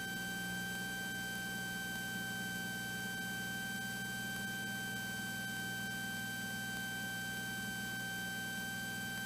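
Cessna 182T Skylane's six-cylinder engine and propeller at full power on a go-around climb-out, a steady low drone with a steady high-pitched whine over it.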